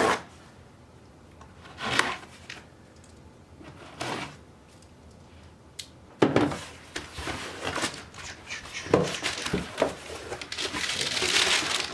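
A cardboard shipping box being handled and opened: a few separate knocks, then from about halfway a busier run of scraping, rubbing and rustling cardboard.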